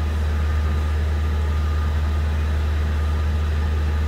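2011 Ford Fiesta's engine idling steadily, a constant low hum.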